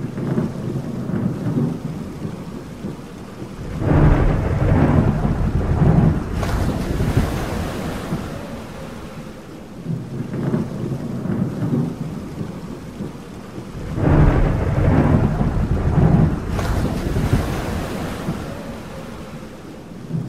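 Thunder rolling twice, about ten seconds apart, each rumble building and lasting several seconds, over steady rain and sea waves.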